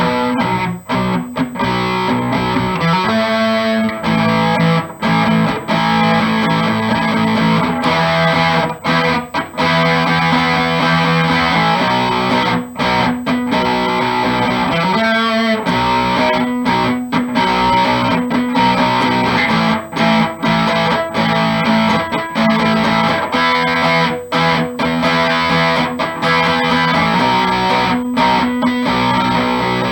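Electric guitar with a Seymour Duncan Little 59 mini humbucker in the bridge position, played through an amplifier: chords and single-note phrases strummed and picked continuously, with short breaks between phrases. It is a first sound check of the newly installed pickup, and it gives the fatter tone of a humbucker.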